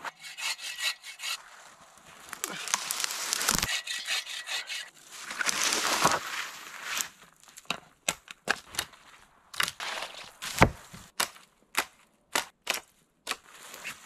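Dead trees and branches being handled and dragged through snow and brush, a long scraping rub, then a run of sharp cracks of dry wood snapping. The loudest crack, with a heavy thump, comes about ten and a half seconds in.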